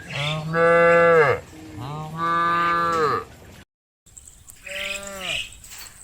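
Cattle mooing: two long, loud moos, each rising at the start and falling away at the end. After a brief total dropout, a third, quieter moo follows.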